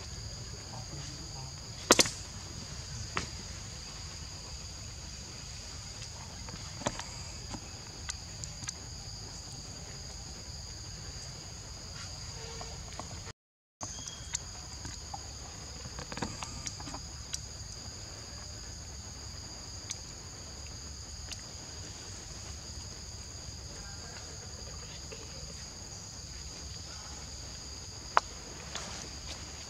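Steady, high-pitched buzzing of insects, two constant tones, with scattered sharp clicks and knocks, the loudest about two seconds in and another near the end. The sound cuts out completely for a moment about halfway through.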